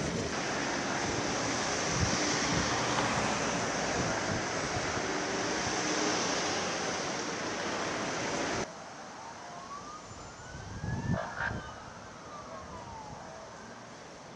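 A loud, even rush of outdoor noise, cut off suddenly about two-thirds of the way through. Then an ambulance siren wails once, its pitch rising and falling over about two seconds.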